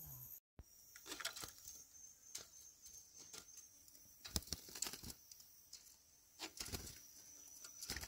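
Scattered faint clicks and rustles over a steady high insect drone, with a brief dropout about half a second in.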